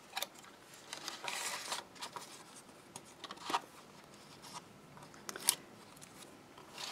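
Card being handled and the backing paper peeled off sticky tape on the corner tabs of a paper box card: faint rustling with a few crisp clicks, the sharpest about three and a half and five and a half seconds in.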